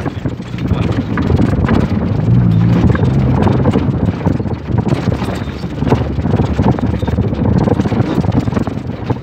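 An off-road 4x4 driving over a rough dirt track: the engine running under a dense clatter of knocks and rattles as the vehicle bounces over the bumps, with the engine note holding steadier for about a second between two and three seconds in.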